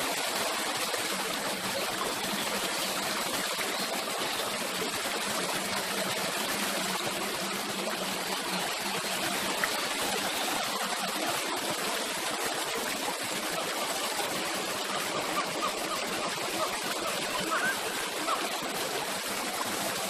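Water gushing steadily out of a sculpted rock fountain spout and splashing down in a continuous, even rush.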